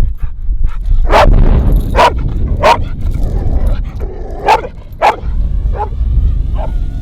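A dog barking: about five loud, short barks over the first five seconds, then two fainter ones. Wind rumbles on the microphone.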